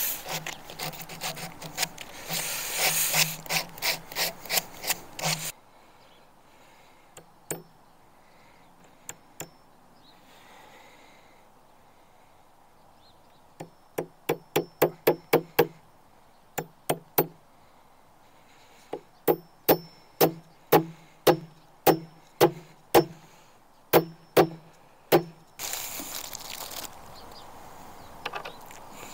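Rapid repeated strokes of a hand tool on the wooden Victrola cabinet, coming in three bursts. There is a dense run over the first five seconds, a short quick run about fourteen seconds in, and a steadier run of about two or three strokes a second from about nineteen to twenty-five seconds. Between the bursts there are only a few single clicks.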